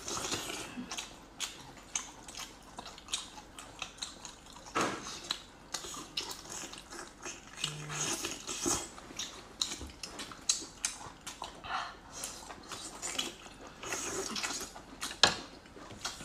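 Close-miked chewing and mouth-smacking of two people eating sea snail meat: wet, irregular clicks and crackles, with one louder click near the end.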